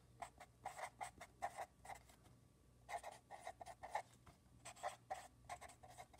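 Black felt-tip marker writing on lined notebook paper: faint, quick scratching strokes as words are written, with a pause of about a second a third of the way in.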